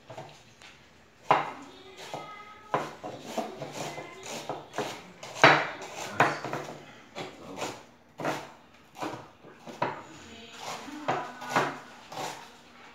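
Large chef's knife chopping on a wooden cutting board: a run of uneven, sharp knocks, roughly one and a half to two a second.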